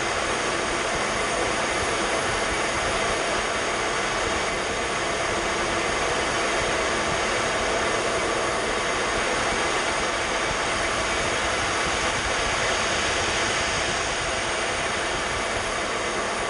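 Steady, unbroken noise of jet engines and rushing air heard inside a military jet's cockpit, with faint high steady whining tones over it.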